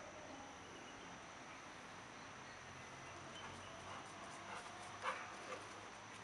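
Faint, mostly steady background hiss with a few soft, short dog sounds in the second half, the sharpest about five seconds in.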